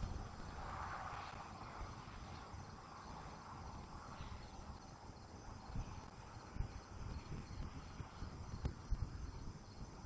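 Faint outdoor night ambience: a steady high insect chirring, with irregular low rumbles from wind on the microphone.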